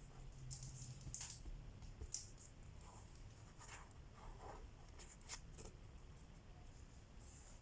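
Faint scratchy rustles of a needle and embroidery floss being pulled through cross-stitch fabric, about half a dozen short strokes, over a faint low hum.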